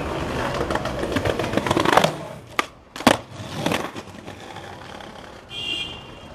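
Skateboard wheels rolling on pavement, then a loud clack as the board hits a stone ledge, grinding along it, and a second loud clack about a second later on coming off, followed by wheels rolling away.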